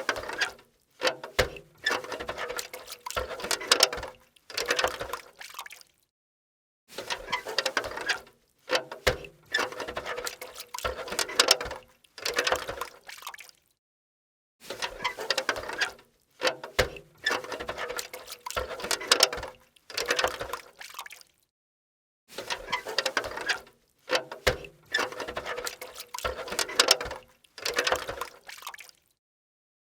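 Steel bucket being handled: knocks and clanks with a steady metallic ring. The same clattering passage of several seconds repeats about four times, with short silences between.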